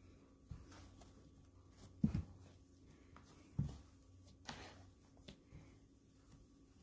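Hands playing with slime: scattered soft pokes, clicks and squishes, with two louder low thuds about two seconds and three and a half seconds in.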